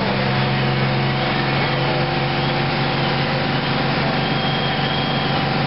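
Fire engines' motors running steadily, a constant engine hum with a few held tones under an even hiss.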